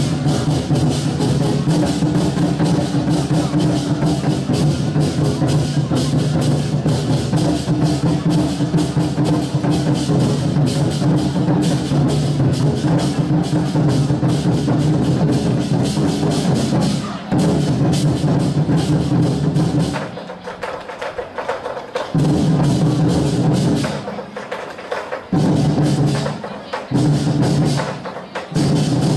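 An ensemble of large Chinese war drums (red barrel drums) playing fast, dense drumming. About two-thirds through, it breaks into short stop-start phrases, with sharp clicks carrying on in the gaps between the drum blasts.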